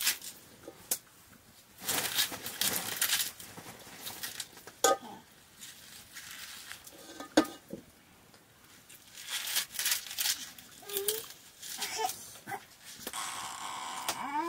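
Fresh leafy greens rustling and crinkling as they are handled and cut by hand with a knife, with a few sharp clicks. Short pitched sounds come in near the end.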